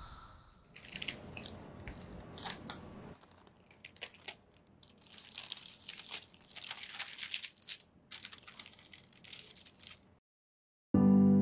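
Parchment baking paper crinkling and crackling in irregular bursts as it is peeled off a freshly baked loaf of banana bread. A high cicada buzz fades out in the first second, and piano music comes in just at the end.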